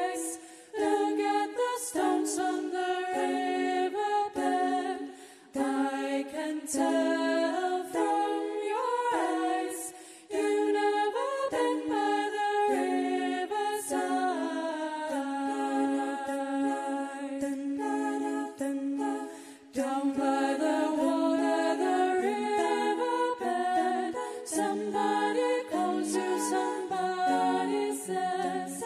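Female a cappella vocal group singing in harmony into handheld microphones, several voices on different notes with no instruments.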